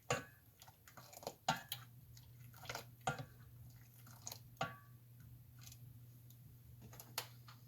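Tea being stirred in a cooking pot: a utensil or glass knocks and clinks against the pot about seven times, some knocks ringing briefly, with soft liquid sloshing. A low steady hum starts about a second and a half in.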